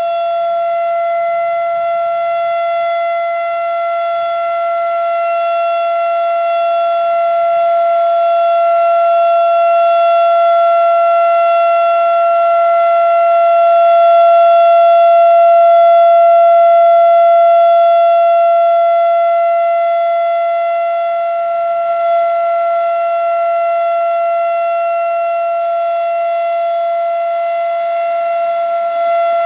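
Federal Signal RSH-10 Thunderbeam outdoor warning siren sounding a Full Alert: one steady, unchanging tone with no wail, swelling louder through the middle and easing off again.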